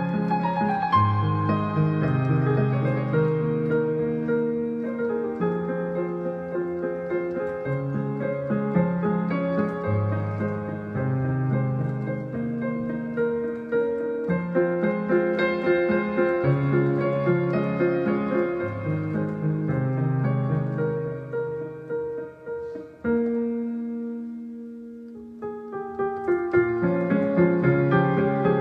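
Piano music: an instrumental piano piece. About 23 seconds in, a chord is struck and left to fade, and the playing resumes about three seconds later.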